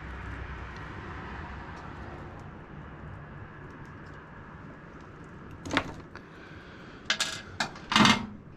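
Small metal parts and tools being handled while splicing speaker wires: a few sharp metallic clicks and clatters over a steady low hum. There is one click about six seconds in, and a louder cluster near the end.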